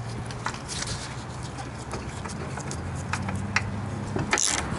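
A steel caliper bracket bolt being threaded in by hand, giving a few faint metallic clicks over a steady low hum. Near the end a brief, louder rasping noise.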